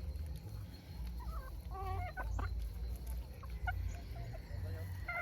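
Chickens clucking in short pitched calls, a cluster about a second and a half in and a few more near the end, over a steady low rumble.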